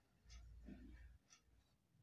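Near silence: quiet room tone with faint, evenly spaced ticks about once a second, and a low rumble through the first half.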